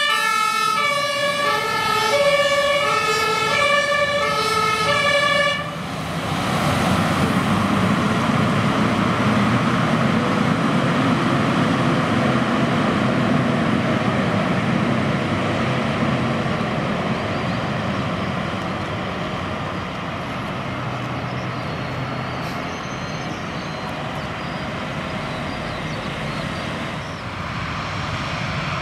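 Two-tone fire siren on a Rosenbauer Panther 8x8 airport crash tender, alternating between two pitches and cutting off about five seconds in. Then the truck's twin inline-six engines and tyres on wet tarmac, running loud at first and somewhat quieter in the second half.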